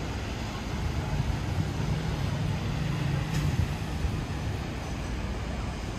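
Rainy city street ambience: a steady wash of rain and wet traffic noise, with a vehicle passing by, its low engine hum building from about a second and a half in and fading after about three and a half seconds.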